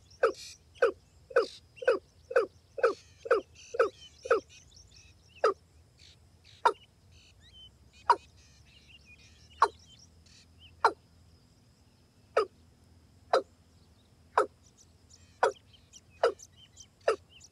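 A rail (gà nước) calling a series of short, loud notes that each slide downward in pitch. They come about two a second for the first four seconds, then slow to roughly one a second.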